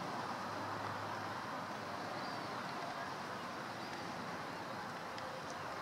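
Steady outdoor background noise, an even wash of sound, with a few faint high chirps.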